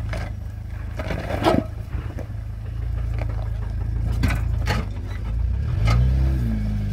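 Off-road 4x4's engine running low and steady, with several sharp knocks and scrapes over it.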